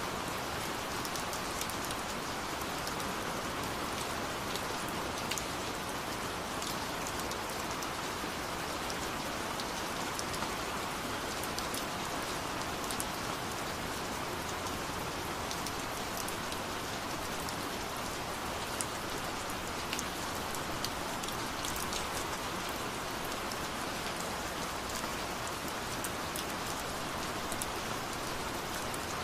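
Rain ambience track: steady rain falling on a surface, an even hiss with many small drop ticks scattered through it.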